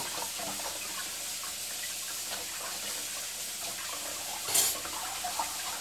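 Kitchen tap running a steady stream of cold water onto freshly blanched stinging nettles in a plastic colander, draining through into a basin of water in the sink. There is a brief louder rush of water near the end.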